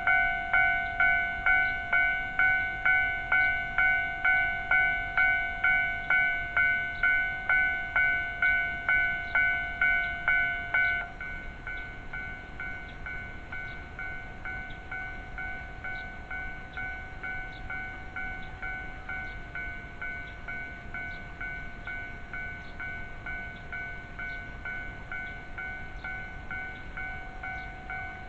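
Japanese railroad level-crossing warning alarm ringing, a metallic electronic ding repeating about twice a second. About eleven seconds in it drops abruptly to a much quieter level and keeps ringing.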